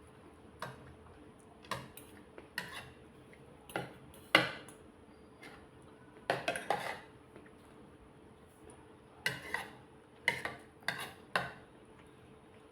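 Cutlery clinking against a dish while eating: about a dozen short, irregular clinks with pauses between, a few of them coming in quick little clusters.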